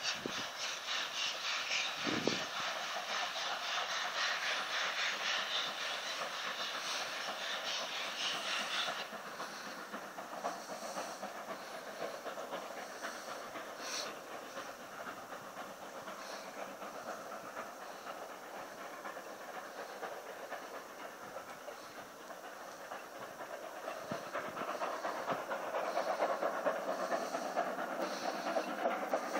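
Steam-hauled retro train moving away along the line. Its fast, even beat and wheel clatter are plain for about nine seconds, then fade to a fainter steady hiss, which grows louder again near the end.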